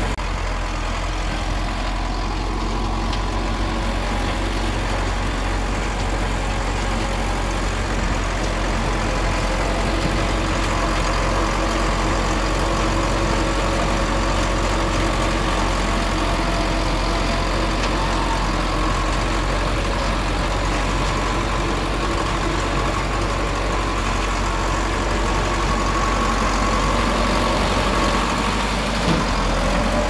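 Komatsu D20P bulldozer's diesel engine running steadily.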